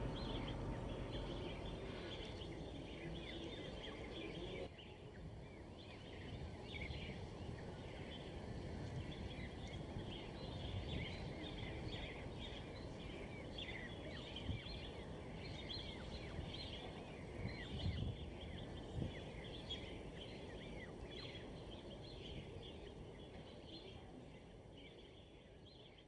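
Many birds chirping in a dense, continuous twitter of short calls over a steady low background rumble, with a few soft low thumps around the middle.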